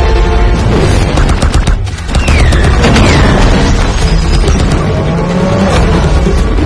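Action-film sound mix of a spaceship chase: rapid volleys of gunfire over the heavy rumble of ship engines, with orchestral score underneath. Two falling whines sound a couple of seconds in.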